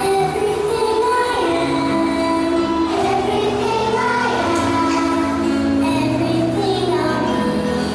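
A song playing: music with a singing voice carrying a melody, steady in level throughout.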